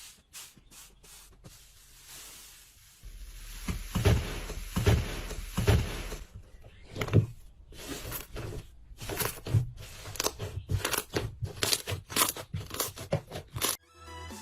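Slime being pressed and poked by hand, giving irregular crackling clicks and soft squishes. These are sparse at first and come thick and fast from about four seconds in, then stop abruptly just before the end.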